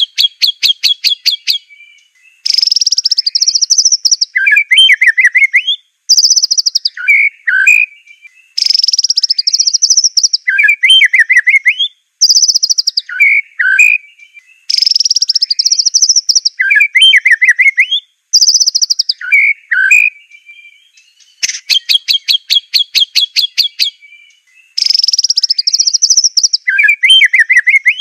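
White-rumped shama (Aceh murai batu) singing a loud, varied song: fast stuttering rattles, high clear whistled phrases and lower warbled notes. The same song sequence comes round again and again, with brief silent gaps between the phrases.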